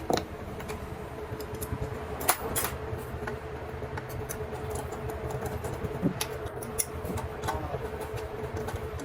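Steady workshop background hum with a faint held tone, broken by a few light clicks, such as parts being handled.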